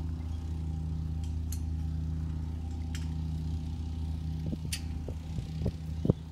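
Steady low hum of an engine or machine running, with a few faint clicks and a short, sharp knock near the end.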